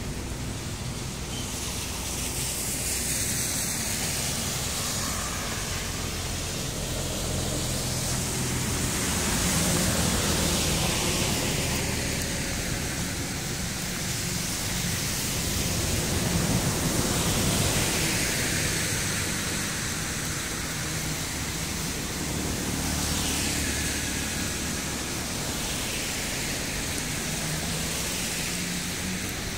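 Steady outdoor hiss of rain and wind, swelling and easing several times.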